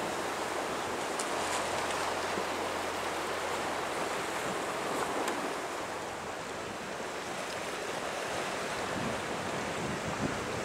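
Sea surf washing against a rocky shore, a steady rushing with wind blowing across it.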